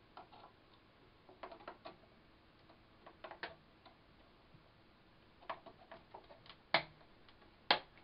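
Plastic clicks and taps from a 1 GB DDR memory stick being worked into a PowerMac G5's memory slot by hand, in small clusters, ending in two loud, sharp snaps near the end as the module seats and the slot latches close.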